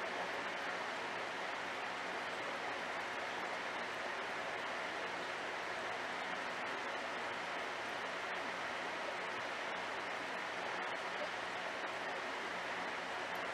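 Steady rushing water noise from running aquarium equipment, with a faint low hum underneath.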